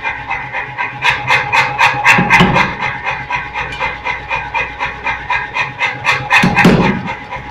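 Power hammer striking a red-hot steel bar in a closed ball die in a quick run of blows, about five a second, starting about a second in and stopping shortly before the end, with two heavier, deeper blows among them. The hammer's running motor hums steadily underneath.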